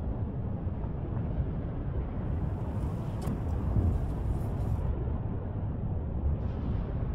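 Steady deep rumble of an erupting volcanic crater, with lava spattering and fountaining in the vent.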